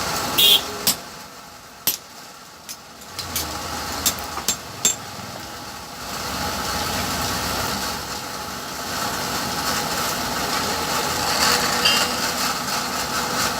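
A steady machine drone that fades for a few seconds near the start. Several sharp knocks come in the first five seconds, then the drone returns at full strength.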